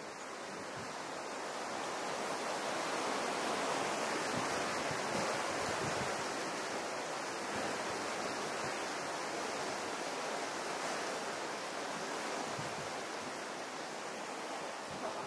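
Steady rushing of flowing water, swelling slightly a few seconds in.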